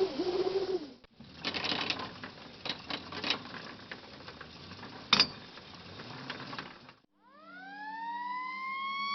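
A short wavering tone fades out in the first second, followed by about six seconds of crackling and popping noise with sharp clicks. From about seven seconds in, a mechanical fire-truck siren winds up, its pitch rising fast and then levelling off into a steady wail.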